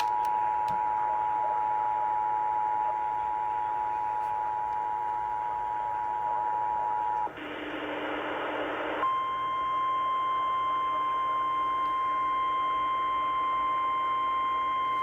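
EAS two-tone attention signal, two steady tones sounding together, is cut off about seven seconds in by a short burst of radio static. The single steady NOAA Weather Radio warning alarm tone then sounds, marking the start of a new flash flood warning.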